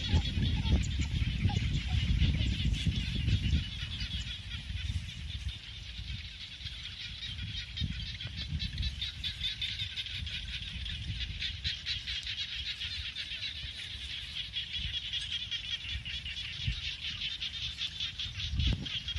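Open-field ambience: a steady high-pitched chorus of small animals, made of dense rapid pulses, with gusty low rumble on the microphone that is strongest in the first few seconds.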